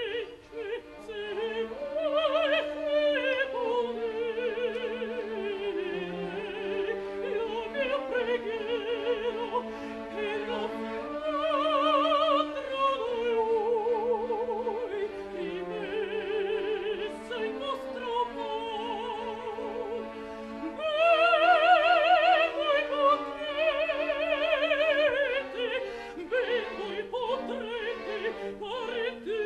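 Operatic soprano singing long, wide-vibrato phrases over a soft orchestral accompaniment, with a loud climb about two-thirds of the way through.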